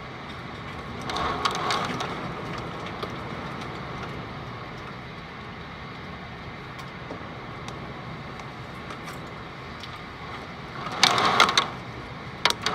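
Hail striking double-pane glass windows: a steady patter of small hits over the storm noise. About eleven seconds in there is a louder burst of sharp cracks, and another hit comes near the end.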